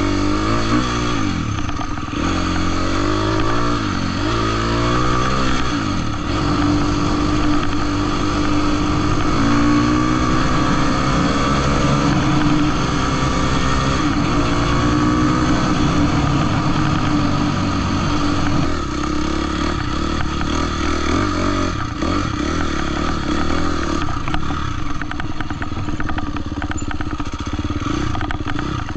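Husqvarna dirt bike engine running while ridden, rising in pitch several times as it pulls through the gears over the first few seconds, then holding a fairly steady speed before varying again near the end.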